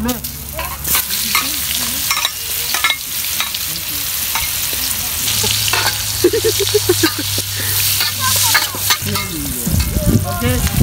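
Sliced onion sizzling in hot oil in a steel wok over a wood fire, with a metal spatula repeatedly scraping and clacking against the wok as it is stir-fried.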